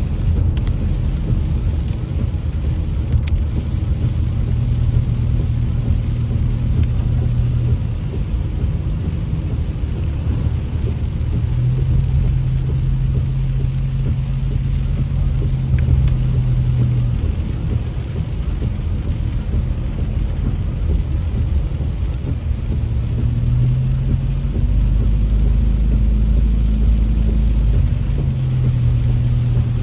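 Car driving on wet pavement, heard from inside the cabin: a steady engine and road hum whose pitch shifts several times as the speed changes, over a faint hiss of tyres on the wet road.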